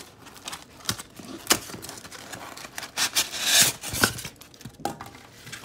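Cardboard shipping box and plastic packing bag being pulled open by hand: rustling and scraping, a few sharp snaps, and the loudest rustle about three seconds in.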